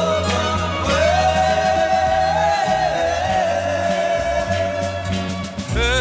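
Slow pop ballad sung by male voices in close harmony over a band backing, holding one long note that starts about a second in, with a new sung line beginning near the end.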